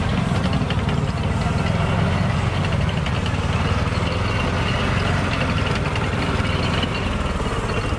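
An engine idling steadily close by, a low, even rumble.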